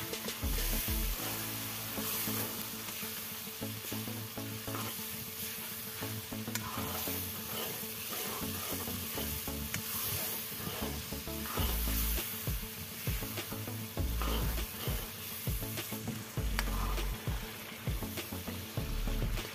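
Onion-tomato curry masala sizzling in hot oil in a metal kadai while a steel ladle stirs and scrapes through it against the pan. A few dull low bumps come in the second half.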